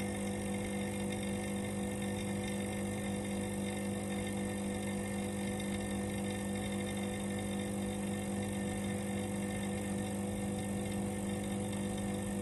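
Vacuum pump running with a steady, even mechanical hum, evacuating the chamber of a lab sigma (Z-blade) kneader while the vacuum builds toward 0.09 on the gauge.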